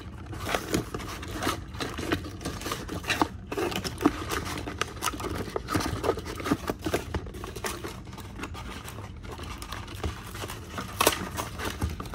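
Cardboard packaging tray rustling, scraping and tearing as a plastic action figure is worked free of it, with irregular small clicks and knocks of hard plastic against the cardboard.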